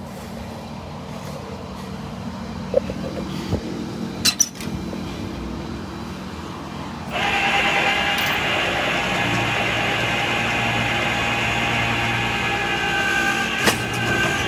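Tow truck running with a steady low hum, then about seven seconds in a louder whine cuts in suddenly and holds: the truck's winch being run to pull the ditched vehicle up.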